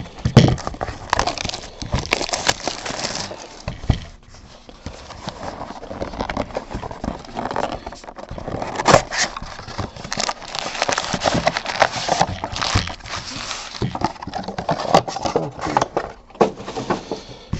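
Plastic shrink-wrap crinkling and tearing off a Diamond Kings baseball card box, then cardboard and foil packs rustling as the box is opened, with many small snaps and crackles.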